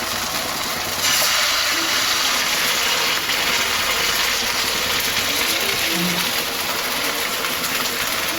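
Ghee sizzling in a pan as pumpkin-filled wheat-dough sweets fry in it. A steady hiss that gets louder about a second in.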